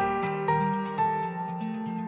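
Gentle background music: plucked notes, like guitar or harp, with a slow melody over held low notes.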